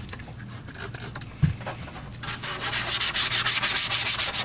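Hand scrubbing in fast, even back-and-forth strokes, cleaning marks and stuck carpet glue off a vacuum power head. The strokes pause briefly, with a single low thump about a second and a half in, then resume about two seconds in.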